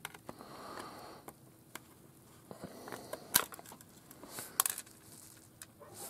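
Small screwdriver clicking and scraping on the screws in a transistor radio's plastic case and circuit board: scattered light clicks, the sharpest about three and a half seconds in.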